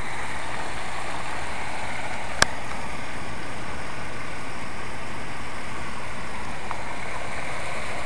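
Outdoor water fountain's falling water, a steady rush, with one sharp click about two and a half seconds in.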